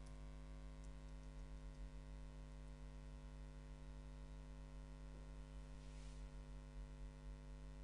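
Low steady electrical hum with faint hiss, with a faint brief rustle about six seconds in.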